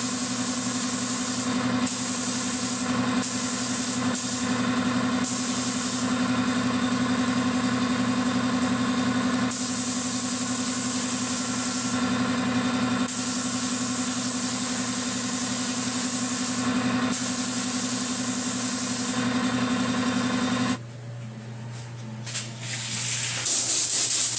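Air compressor running with a steady hum while a gravity-feed paint spray gun hisses in repeated bursts a few seconds long. With a few seconds left the compressor cuts out, and the gun hisses once more.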